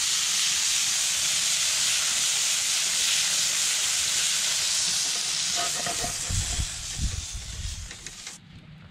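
Meat sizzling loudly and steadily on a hot grill over a campfire, after being turned. The sizzle cuts off suddenly near the end.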